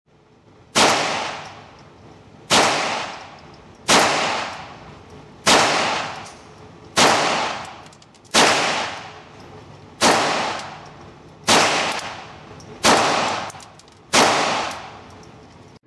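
Browning Challenger .22 LR semi-automatic pistol fired ten times in slow, steady succession, about one shot every one and a half seconds. Each sharp crack is followed by a long echo off the concrete walls of an indoor range.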